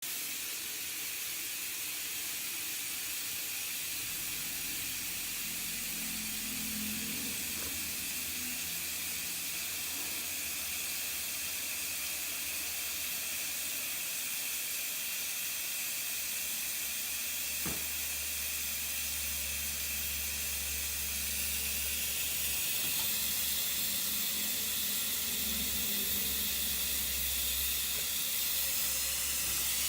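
Steady hiss of running water, growing a little louder after about twenty seconds.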